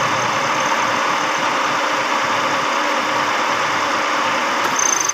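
Carbureted car engine idling steadily with a freshly cleaned carburetor, new spark plugs and a new fuel filter.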